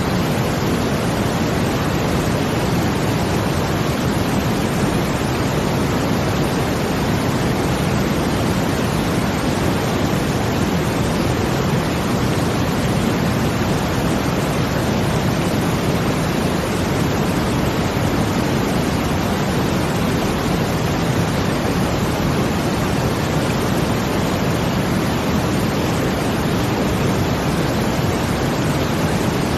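Brown noise blended with a water sound, a steady, unchanging rush weighted toward the low end, with no swells or breaks.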